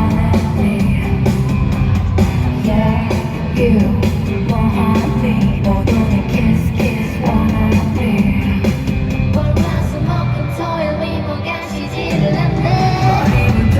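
Live K-pop song performed with singing over loud band backing, played through arena speakers.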